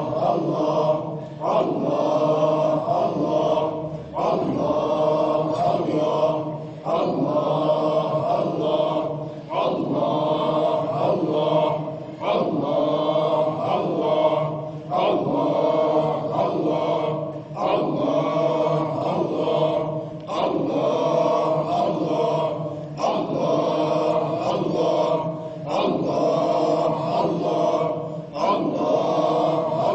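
Sufi hadra dhikr: a group of men chanting together, repeating a short phrase in a steady rhythm about once every one and a half seconds.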